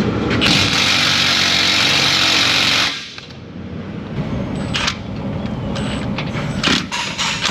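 Impact wrench hammering on a tight suspension nut for about two and a half seconds, then stopping. A few sharp metallic clicks follow.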